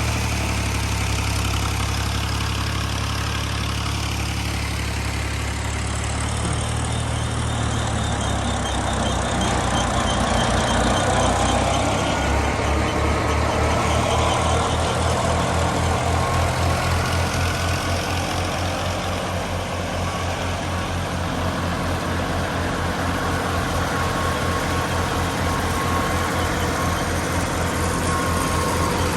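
Tractor diesel engine running steadily; about twelve seconds in its low note takes on a rapid, even pulsing.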